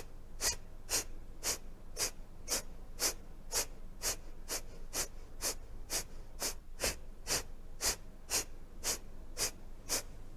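A woman's rapid, forceful exhalations through the left nostril, the right nostril held shut by the thumb, in the Virechan Gati yogic breathing exercise. The sharp puffs come evenly at about two a second.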